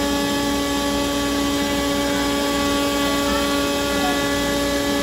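DeWalt router running as the spindle of a CNC router machine, carving a sign into a wooden board: a steady, even whine with no change in pitch.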